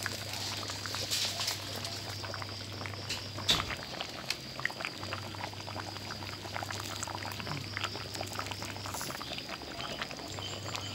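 Pork and pumpkin coconut-milk curry coming to the boil in a metal pan, a dense crackle of small bubbling pops, with a metal spatula stirring through it and one sharper knock about three and a half seconds in. A low steady hum runs underneath and drops out twice.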